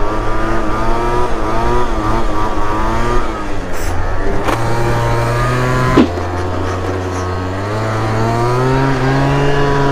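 Booster Spirit 50cc two-stroke scooter engine running under changing throttle, its pitch rising and falling. About six seconds in there is a sharp click and the note settles steadier, then climbs again.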